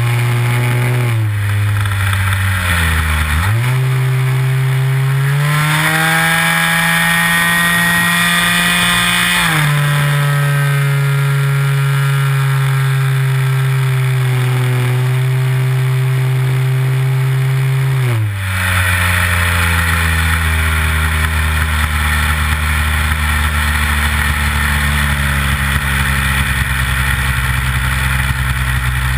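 Nitro glow engine of a Big Stik 60 RC airplane, heard from a camera mounted on the plane, running in flight. The pitch dips about a second in, climbs back around three seconds in and holds high, then drops to a lower steady throttle about eighteen seconds in.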